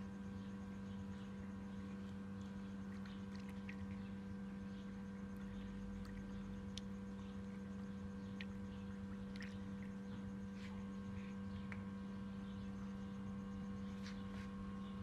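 A steady low electrical hum, with faint scattered ticks and clicks over it.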